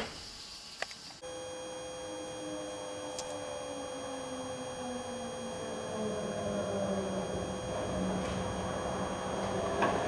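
Electric tram approaching on its tracks, growing louder. A motor whine sinks slowly in pitch over a steady electrical hum made of several constant tones.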